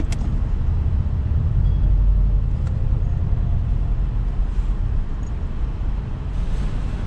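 Car being driven slowly: a steady low rumble of engine and road noise that swells a little about two seconds in, with a single click at the start.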